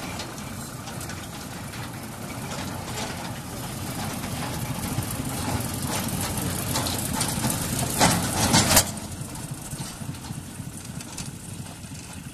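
Small narrow-gauge diesel locomotive's engine running with a knocking beat, growing louder as it approaches. Scattered sharp clicks, and a brief loud noisy burst about eight seconds in, after which it drops back.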